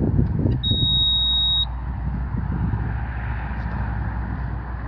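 Bobcat E32 mini excavator's Kubota three-cylinder diesel engine running steadily. A single high-pitched electronic warning beep lasts about a second near the start.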